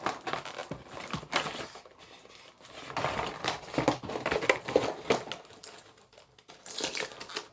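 Crinkling and rustling of packaging being handled, in irregular clusters of small clicks and crackles.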